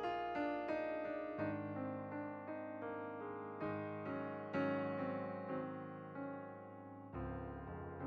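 Background piano music: a slow, gentle piece of soft repeated notes over held chords.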